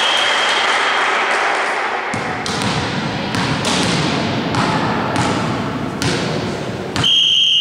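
Volleyball play on an indoor court: several sharp thuds of the ball being hit amid people's voices, then about seven seconds in a referee's whistle starts a steady high blast, the signal for the next serve.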